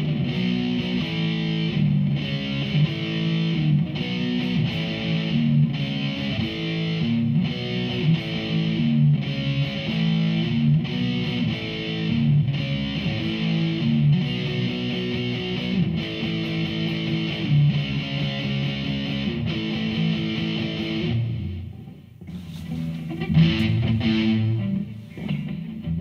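Electric guitar played through a Behringer V-AMP PRO amp-modelling processor on an overdrive preset, repeating a distorted chord riff in even phrases. About 22 seconds in the sound briefly drops away as the preset is switched, then the guitar comes back with a different, brighter and choppier overdriven tone.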